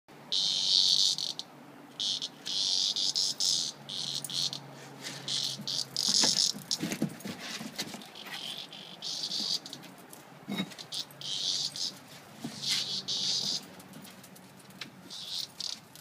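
A cicada buzzing in repeated harsh bursts, each about half a second to a second and a half long, stopping and starting: the squawk a cicada gives when it is pawed and mouthed by puppies. A few soft knocks of paws on wooden decking in between.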